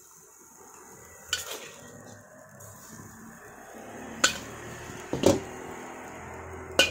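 Metal spatula clinking against metal cookware as stir-fried topping is scooped into a paper takeaway box: four sharp clinks, spaced one to three seconds apart, over a steady low background hum.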